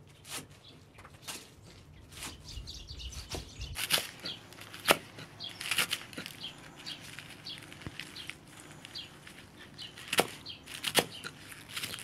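Large kitchen knife chopping fresh greens on a wooden board: a run of quick, uneven cuts with sharper knocks where the blade hits the board.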